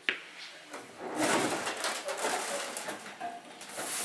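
Peterbilt truck's tilt hood being opened: a sharp latch click at the start, then, from about a second in, a run of clattering and rubbing as the fiberglass hood is pulled forward on its hinges.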